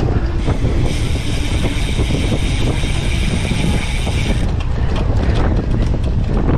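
Cyclocross bike ridden at race pace over rough ground: a heavy rumble of tyres and wind on the microphone, with the chain and drivetrain rattling. A steady high whirr runs until about four and a half seconds in, then gives way to scattered clicks and knocks.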